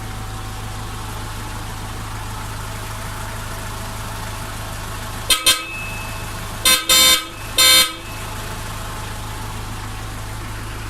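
Hella Supertone twin-tone horns on a Nissan Urvan sounding two quick toots, then two longer blasts, over the van's engine idling steadily. The horns are being test-fired through their new relay with the engine running and every electrical load switched on, to check that their tone holds under full electrical load.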